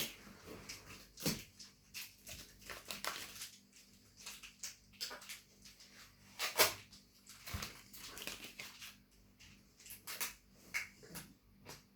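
Adhesive sticker being peeled off a washing machine's door: irregular crackles and ticks of the glue and paper pulling away, with a sharper pull about six and a half seconds in.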